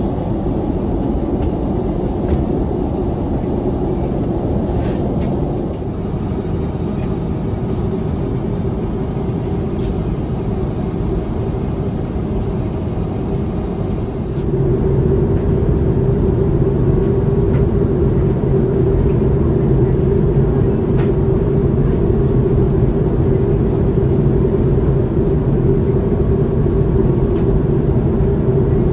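Steady cabin noise of an Airbus A350-900 airliner in flight: the low rush of airflow and Rolls-Royce Trent XWB engines. It steps up in level about halfway through, with a steadier hum.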